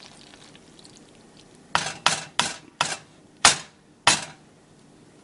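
Stirring spoon knocking against the side of a small saucepan of macaroni and cheese: six sharp knocks in about two and a half seconds, starting a little under two seconds in.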